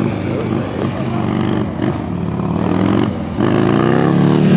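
Sport motorcycle engine revving and changing pitch as the rider pulls the front wheel up into a wheelie. The engine gets clearly louder about three and a half seconds in, as the throttle is opened.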